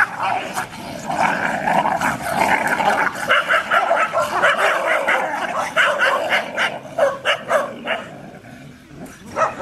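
A group of dogs barking, yelping and growling over one another as they scuffle, with many sharp barks in quick succession; it eases off near the end.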